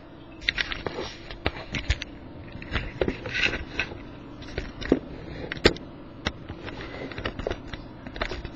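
Handling noise from a camera being moved and repositioned: irregular knocks, clicks and scrapes on its microphone, over a steady low hum.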